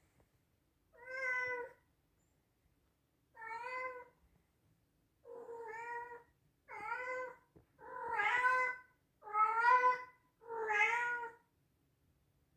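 Scottish Straight cat meowing loudly, seven separate drawn-out meows, each about a second long. They come closer together and get louder in the second half.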